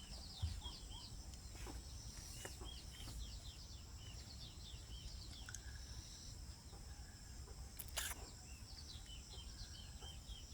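Small birds chirping faintly in a run of short, quick, falling notes, over a steady high-pitched background drone.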